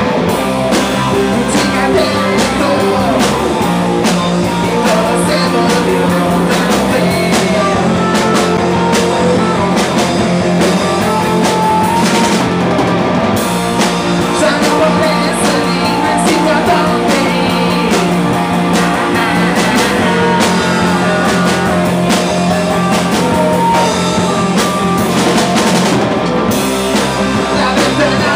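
Live rock band playing: sung vocals over electric guitar, electric bass and a drum kit, loud and continuous.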